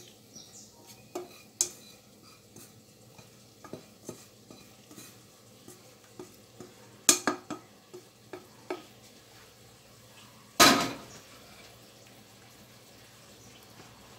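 Spatula scraping and tapping against a nonstick frying pan as sautéed leeks are scraped out of it onto a salad. There are scattered light knocks, and one louder clatter about ten and a half seconds in.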